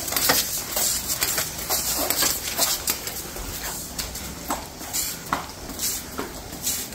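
Garden hose spray nozzle running at full blast while the loose hose whips about on concrete, so the plastic nozzle knocks and clatters against the ground at irregular intervals over a steady hiss of spraying water.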